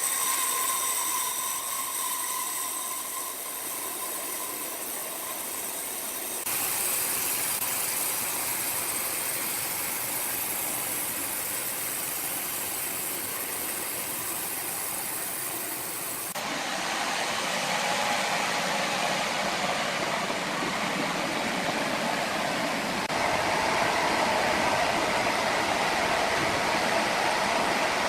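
Sawmill machinery running: a steady, noisy mechanical din with a faint whine that fades within about four seconds. The sound changes abruptly about six seconds in and again about sixteen seconds in.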